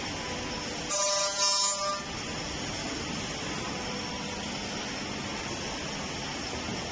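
CNC tenoning and mortising machine running with a steady hum. About a second in, a loud whine with a hiss lasts about a second.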